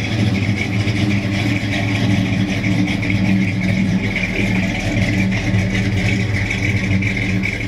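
1970 Buick GS455's 455 cubic-inch four-barrel V8 idling steadily through its dual exhaust, a deep, even note.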